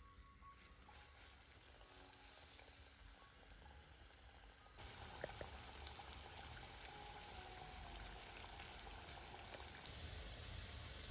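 Faint cooking sound: a steady hiss with scattered small pops, like food sizzling, coming in abruptly about five seconds in. A little background music fades out just before it.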